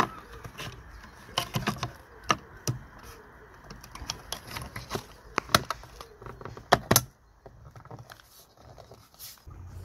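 Plastic door-mirror cover of a 2003 VW Polo being pressed and snapped onto the mirror housing: a scattering of sharp plastic clicks and taps, with a few louder snaps past the middle.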